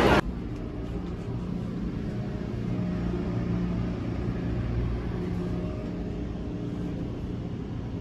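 Steady low hum inside a high-speed train carriage, with a few even low tones over a soft background rush.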